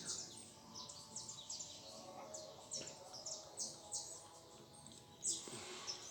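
Small birds chirping: many short, high chirps overlapping, faint, with one louder chirp a little past five seconds in.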